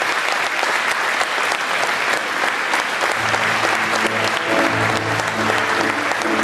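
Audience applauding steadily; about three seconds in, instrumental music starts up under the applause.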